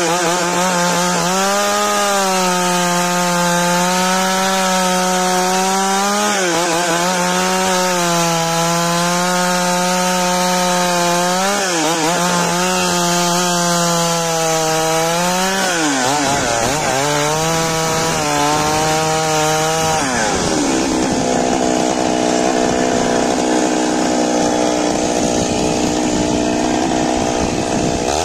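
Large two-stroke chainsaw running under load, ripping a big log lengthwise. The engine note dips and recovers several times as the chain bogs in the cut, and about two-thirds of the way through it turns rougher and less steady.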